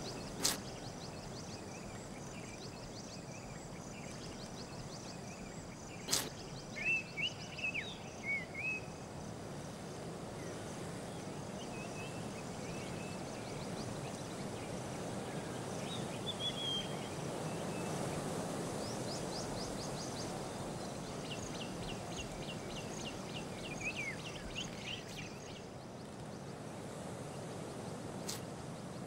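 Outdoor ambience of scattered bird chirps and insect trills over a steady background hiss, with a sharp click about six seconds in and another near the end.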